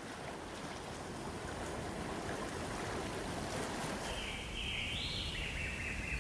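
Steady rushing of flowing water fading in at the start. From about four seconds in, a bird sings one long, wavering call above it.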